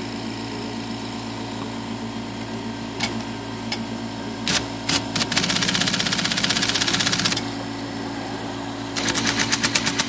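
IBM Selectric II typewriter running with its motor humming steadily. A few single clicks are followed by two runs of rapid, evenly spaced clicking as the backspace mechanism cycles on repeat: one of about two seconds midway with a spray hiss over it, and a shorter one near the end. The backspace is being worked in after its gummed-up pawl was flushed with degreaser.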